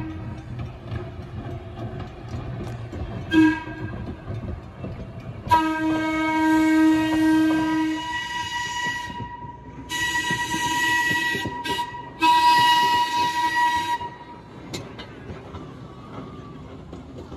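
A Connecticut Company trolley car sounds its air whistle in a series of blasts as it approaches a road grade crossing: a short one about three seconds in, a long one, then two more blasts near the middle, over the rumble of the wheels on the rails.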